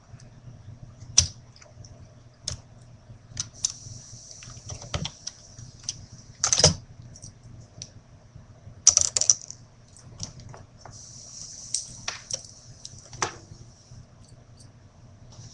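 Irregular clicks, knocks and rustling from hands handling the wires and alligator clips of a homemade electric firework igniter, over a steady low hum.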